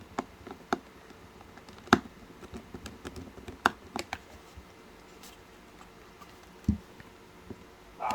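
Irregular small clicks and taps of a screwdriver and hands on a small plastic Bluetooth speaker's casing as its screws are driven back in. The sharpest click comes about two seconds in, and a dull knock comes near the end.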